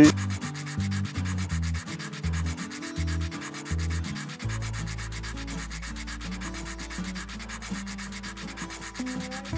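Sandpaper rubbed by hand back and forth over an olive-wood spoon handle in quick, even strokes, smoothing a shagreen-style dotted texture just cut with a diamond burr.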